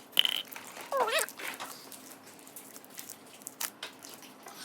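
Slime being squished and stretched by hand, giving scattered soft clicks and crackles. A short wavering whine-like vocal sound comes about a second in.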